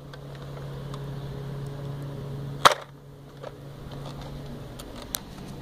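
Nerf Disruptor spring-powered dart blaster firing once: a single sharp snap about two and a half seconds in, with a faint steady low hum underneath that fades out near the end.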